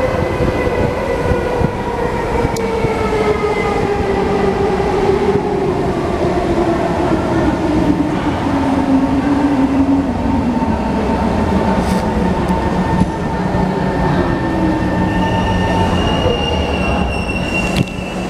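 Electric metro train pulling into the station platform and braking to a stop, with a whine that falls steadily in pitch over about ten seconds as it slows. A steady higher tone starts a few seconds before the end.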